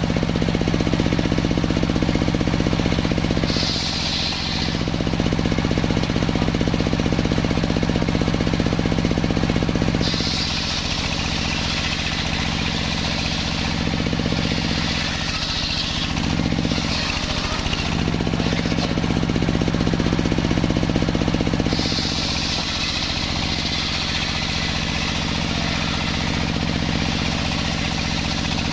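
Large sawmill circular saw ripping through a kayu salam log. The motor driving it runs steadily underneath, and the high cutting noise of the blade in the wood comes and goes in three spells: a short one about four seconds in, a long one through the middle, and one near the end.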